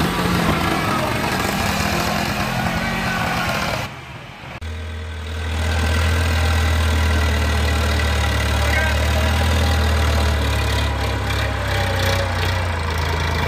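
Sonalika DI 50 tractor's diesel engine running while it pulls a trolley loaded with soil. The sound drops away briefly about four seconds in, then returns as a steady low engine drone.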